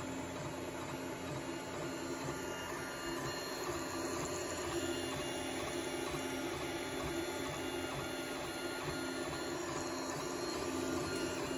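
A Creality FDM 3D printer running a print: its stepper motors whine and whir steadily as the print head moves, over a constant fan hum.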